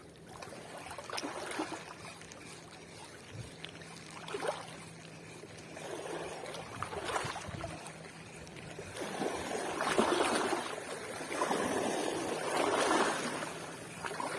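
Shallow seawater washing and trickling over a rocky shore, swelling several times, loudest about ten seconds in.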